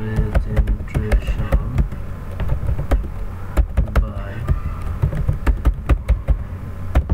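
Computer keyboard keys clicking in quick, uneven succession as text is typed, over a steady low hum.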